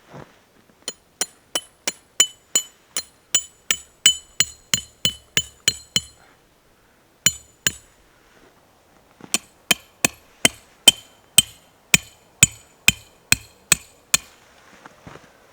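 Hammer blows on metal tent pegs, a run of sharp ringing strikes at about three a second, then two single blows, then a second run.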